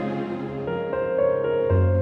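Soft instrumental background music of held notes, the chord changing about two-thirds of a second in, and a deep bass note coming in near the end.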